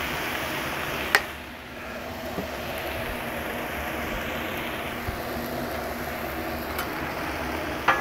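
Onions and peppers sizzling steadily on a propane flat-top griddle, just splashed with Worcestershire sauce. A sharp click about a second in and another near the end.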